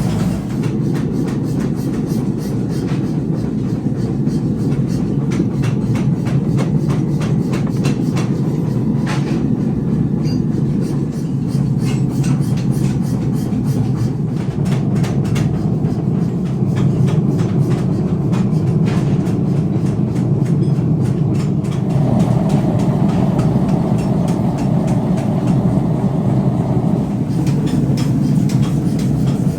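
Loud, continuous metalworking factory machinery running: a steady low din with dense, irregular metallic clatter and knocks over it.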